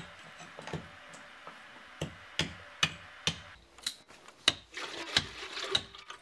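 Hatchet splitting kindling on a wooden stump: sharp knocks about twice a second. Near the end, water pouring.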